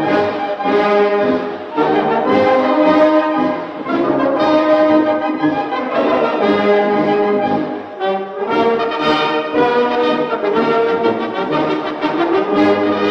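Background music played by a brass band, with trombones and trumpets carrying a melody in held notes.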